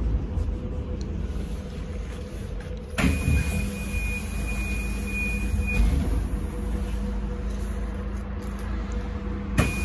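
Sinara-6254 trolleybus heard from inside: a low rumble with a thin steady electric whine. About three seconds in, a sudden hiss and a high steady tone come in for a few seconds, and the same shift comes again near the end.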